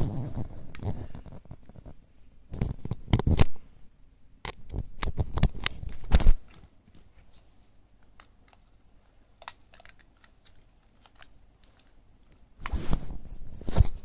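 Handling noise: the recording device rubbing and knocking against fabric, in irregular bursts of rustling and scraping with sharp clicks. It goes quiet apart from scattered small clicks in the middle, then rustles again near the end.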